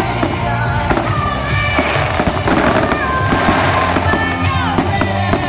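Fireworks bursting, with a dense burst of crackling about halfway through, over music playing throughout.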